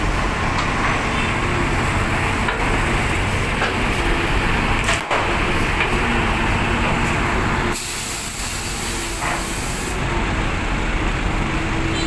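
Motorcycle and vehicle engines running as motorcycles ride off a ferry, a dense steady rumble with faint engine tones. About eight seconds in, a loud hiss lasts about two seconds.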